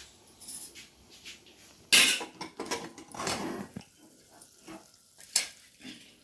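Metal pressure cooker and utensils clanking on a gas stove: a sudden loud clatter about two seconds in, then several knocks and scrapes, and a sharp clink near the end.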